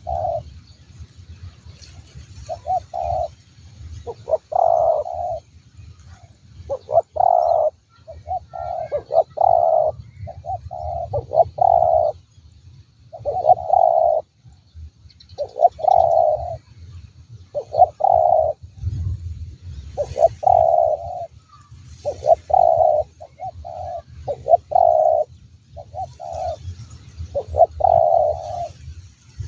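Spotted dove cooing: short phrases of a few soft coo notes, repeated about every two seconds with brief pauses between them.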